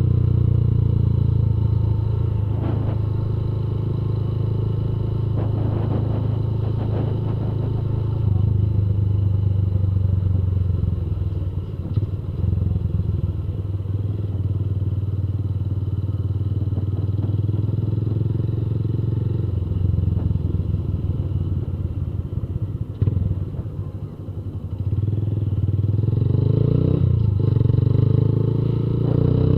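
Honda CG Fan 150 single-cylinder four-stroke engine running through a Fortuna Mini Trioval F1 aftermarket exhaust while riding. The exhaust note eases off as the throttle closes about three-quarters of the way through, then picks up again near the end.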